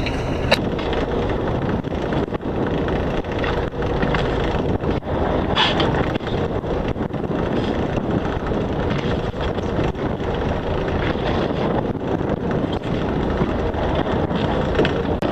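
Steady wind noise buffeting the microphone on the deck of a boat at sea.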